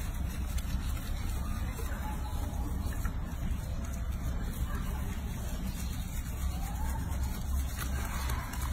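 Hands rubbing and scrubbing soapy lather into a baby monkey's wet fur in a sink of water, over a steady low rumble.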